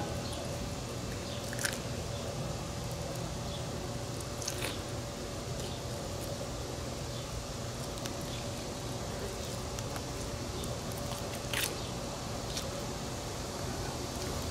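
A few brief crackles and clicks from bullfrog legs being skinned by hand, the skin stripped off the meat, over a low steady background hum.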